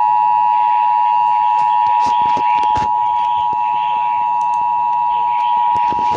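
Emergency Alert System two-tone attention signal: a loud, steady dual tone near 1 kHz that announces the tornado warning voice message. A faint voice and a few clicks sit underneath.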